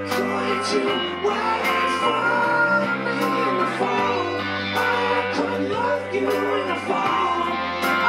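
Live band playing an instrumental passage of a rock song on electric guitar, resonator guitar and bass guitar, with no vocals.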